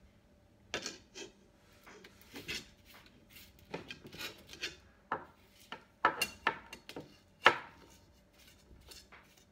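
A metal spoon scraping and clinking on a metal pan as breadcrumbs are pushed into a pile, in a series of short, irregular strokes; the sharpest clinks come about six seconds and seven and a half seconds in.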